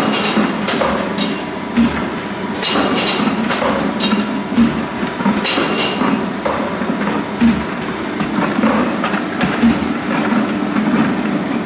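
Automatic pail denester running: plastic pails knock and clatter against the machine's guides and conveyor rollers about once a second, over a steady machine hum.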